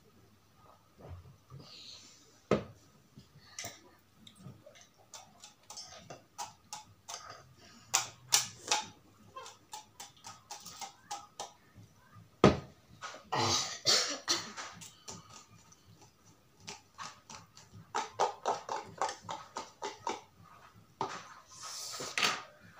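People eating spicy noodles: many short wet clicks and smacks of chewing. Longer slurps come about halfway through and again near the end.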